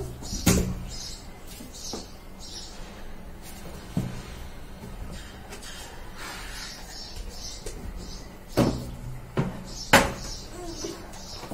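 A few sharp knocks and clacks of something handled on a hard floor: one about half a second in, one about four seconds in, and the two loudest near the end, over a faint steady background.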